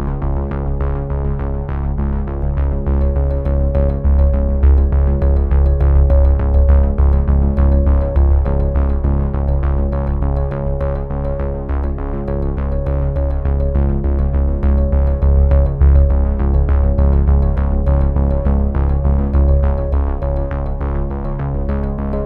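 Background music: synthesizer pads over a steady electronic beat.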